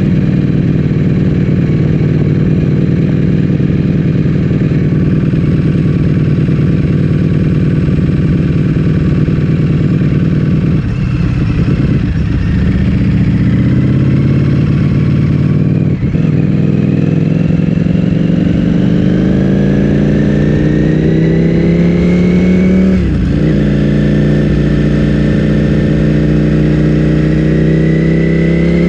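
Ducati Streetfighter V4 S's V4 engine through an Akrapovic full-system exhaust, heard on board while riding. It runs steadily for about ten seconds, drops briefly as the throttle is eased, then climbs in revs, breaks for a quick upshift about two-thirds of the way through, and climbs again.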